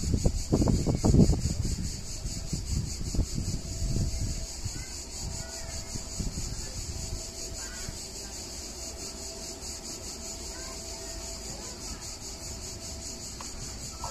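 Cicadas buzz steadily in the trees, a pulsing high rasp. Wind buffets the microphone in gusts over the first few seconds. A faint thin whine comes and goes in the middle.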